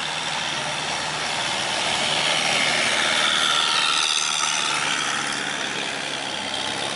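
Long-tail boat with a large automotive engine mounted on its long propeller shaft, passing close at speed. The engine runs steadily and grows louder to a peak about three to four seconds in, with the rush of the wake. Its note drops slightly as it goes by.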